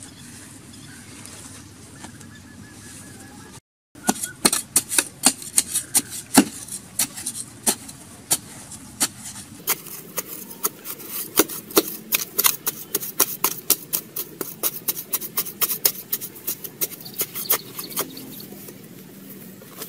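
Small hand hoe chopping and scraping into hard, dry earth, with clods of soil dropping and rattling onto the ground: a rapid, irregular run of sharp scrapes and knocks, several a second, starting about four seconds in.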